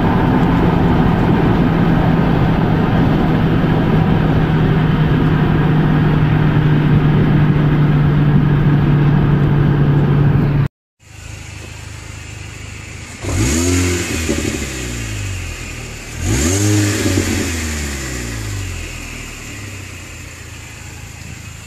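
Mini Cooper S R53's supercharged 1.6-litre four-cylinder heard from inside the car at speed: steady engine and road noise with one held engine note. After a short cut, the engine is blipped twice, about three seconds apart, each rev rising sharply and falling back.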